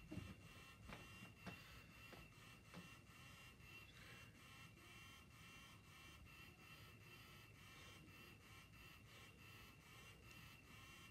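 Near silence: faint room tone with a steady, faint high-pitched whine, and a few soft, faint knocks in the first three seconds.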